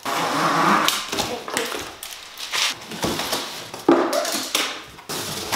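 Cardboard wheel boxes being opened: packing tape slit with a box cutter, and cardboard flaps scraping and rustling as they are pulled open. There is a sharp knock about four seconds in.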